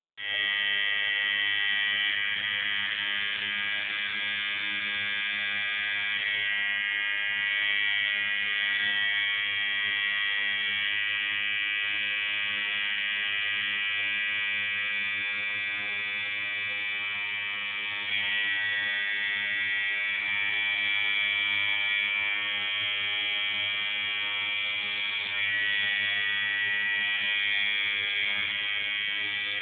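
Tattoo machine buzzing steadily, with slight changes in tone a few times.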